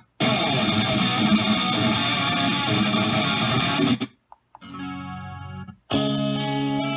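Guitar music playing through a Bluetooth alarm-clock speaker. It stops abruptly about four seconds in, and a different passage starts and stops before the music resumes near the end, as tracks are paused or skipped.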